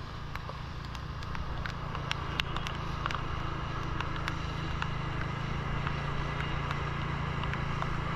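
Motorbike ride on a wet road in rain: a steady low rumble of engine and wind with a hiss of wet tyres, and scattered sharp ticks of raindrops striking the camera.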